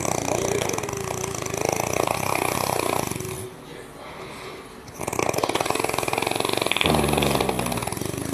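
A sleeping person snoring: two long snores of about three seconds each, with a pause of about a second and a half between them.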